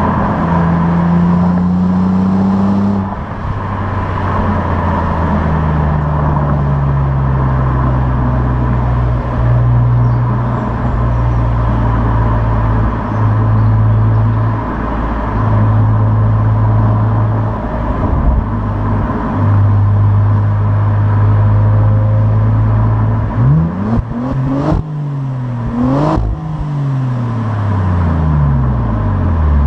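Opel Insignia OPC's turbocharged 2.8-litre V6 on its stock exhaust, running at fairly steady revs that rise and fall gently. About three-quarters of the way through the revs climb sharply twice in quick succession, with a sharp click at each peak, then fall away near the end.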